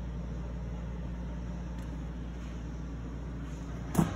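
Steady low machine hum, with a single sharp knock near the end.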